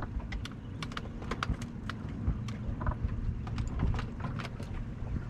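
Small waves lapping against an aluminum boat hull, making irregular light knocks and clicks over a low, steady rumble.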